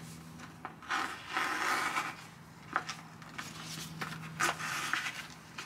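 Scissors working a strip of 3M flashing tape and its paper backing: a hissing, scraping stretch lasting about a second, then a few sharp clicks of the blades.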